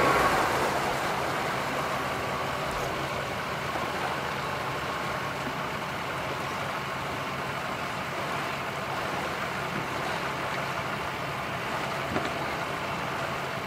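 Yamaha 115 outboard running at low throttle with its propeller churning water, holding the boat onto its trailer. It eases back in the first second or so, then runs steadily.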